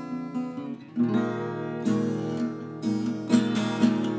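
Steel-string acoustic guitar played solo: softer ringing notes for about the first second, then fuller strummed chords with strong strokes about once a second.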